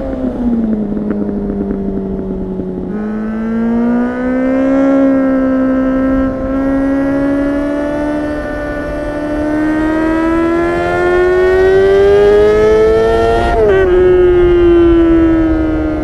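2004 Honda CBR600RR's inline-four engine running through a catless LeoVince slip-on muffler under way. The pitch sinks at first, then climbs slowly and steadily for about ten seconds as the revs build, drops suddenly near the end, and eases down again.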